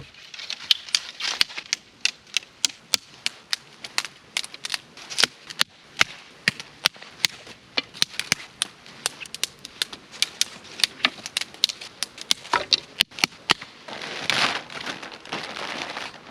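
Dry pine twigs and small sticks snapped by hand into kindling: a quick, irregular series of sharp cracks, with a stretch of rustling near the end as the pieces are gathered.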